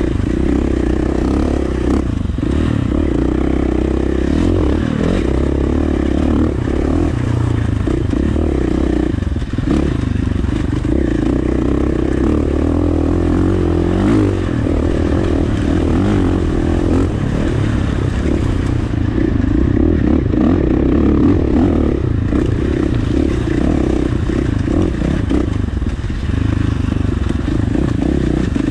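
KTM 450 XC dirt bike's single-cylinder four-stroke engine running steadily under throttle while riding a dirt trail, with small rises and falls in engine speed.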